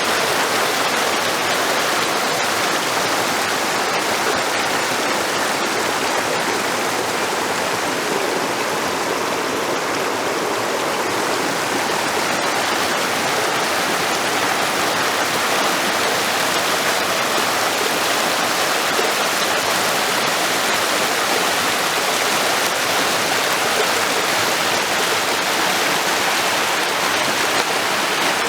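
Steady rushing of flowing water, an even, unbroken rush.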